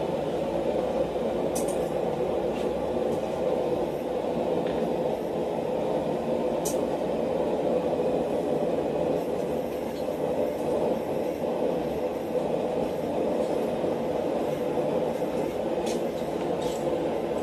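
Forge running with a steady rushing noise while heating flat steel stock, with a few faint metal clinks.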